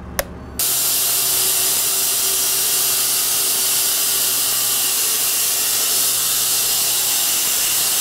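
A switch clicks, then an electric wide bandsaw sawmill cuts into a soft maple log, making a loud, steady hiss of the blade in the wood over a faint motor hum. It is the first cut, made with an old blade from the previous log to see whether it still cuts well.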